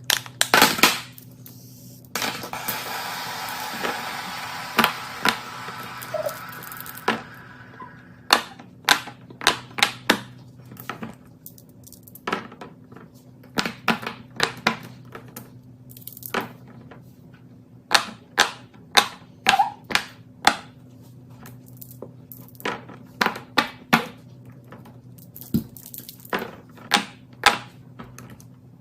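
Fidget toys being clicked and tapped by hand: many sharp, irregular clicks and taps, with a stretch of rustling noise from about two to seven seconds in.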